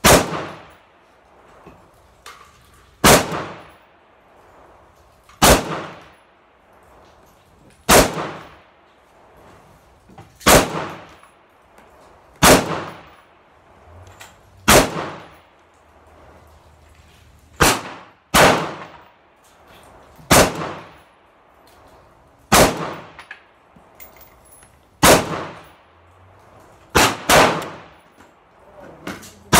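AR-15 rifle fired in slow, single aimed shots, about one every two to two and a half seconds, with two shots in quick succession near the end. Each sharp report is followed by a brief ringing echo from the covered range.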